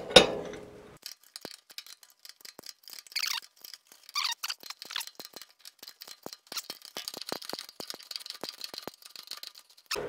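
A metal lathe's chuck and spindle turned backwards by hand, with irregular light clicks and rattles from the gear train as a threading die is backed off a freshly cut 1/2-20 thread. A metallic clank rings out at the start.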